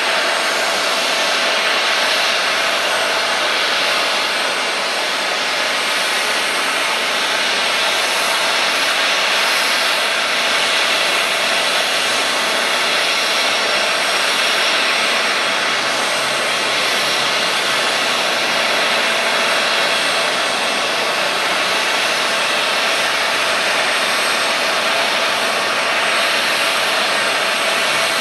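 Parked jet airliner making a steady jet rush with a few faint high tones, even in level throughout.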